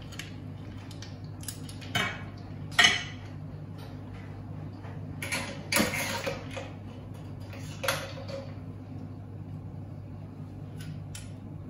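Metal spoon scraping and clinking against a stainless steel saucepan as cooked shellfish in tomato sauce is spooned out onto a plate, with sharp clinks about two, three, six and eight seconds in, the one near three seconds the loudest. A steady low hum runs underneath.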